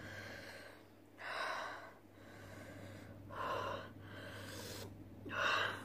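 A woman gasping and breathing hard through the burn of very spicy ramen: three short, noisy breaths about two seconds apart, over a low steady hum.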